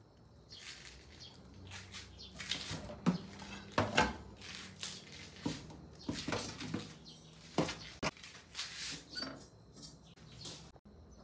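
Scattered knocks and clatter as a pot, a plastic colander and steel bowls are handled and moved about a stainless steel sink.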